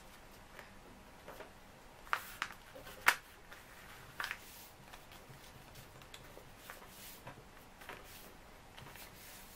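A4 printer paper being folded and creased into a paper airplane: scattered rustles and crisp scrapes as fingers press and run along the folds, the sharpest a little after two seconds in and again just after three seconds.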